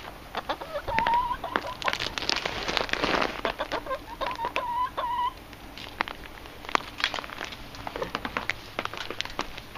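Hens clucking, with two runs of short, wavering calls about one second and about four seconds in, over scattered clicks and rustling.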